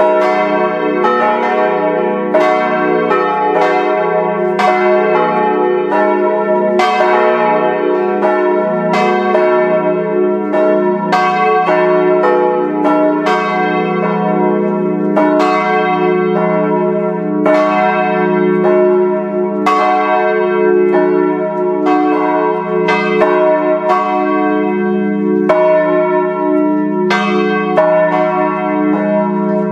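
Cast-steel church bells tuned E-flat, G-flat and A-flat (Bochumer Verein, 1925) swinging and ringing together in a peal, heard close up in the belfry: loud clapper strikes about once a second, overlapping over a continuous hum of the bells' ringing notes.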